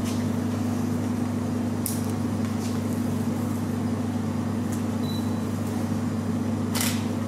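Steady low hum, with a few brief soft rustles as stollen dough is torn off and set on a scale, about two seconds in and again near the end.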